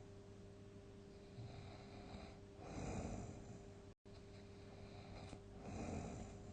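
A sleeping person snoring: a softer breath, then two loud snores about three seconds apart. A faint steady hum runs underneath.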